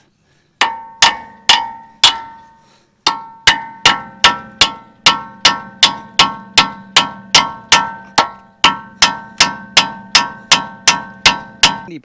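Hammer driving the steel retainer pin into a Chevrolet P30 rear brake caliper, each blow a sharp, ringing metallic clink. Four blows come in the first couple of seconds, then after a short pause a steady run of about two and a half blows a second; the pin goes in hard.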